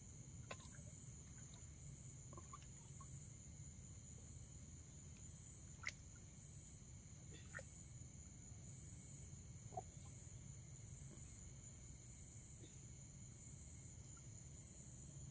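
Faint night insect chorus: a steady high-pitched trill with fast even pulsing, over a low rumble. A few brief faint clicks break in, the sharpest about six seconds in.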